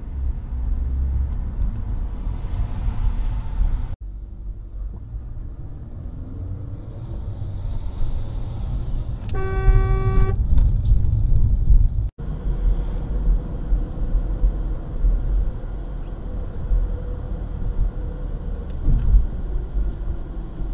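Steady low road and engine rumble inside a moving car, picked up by a dashcam, with one car horn blast lasting about a second roughly halfway through.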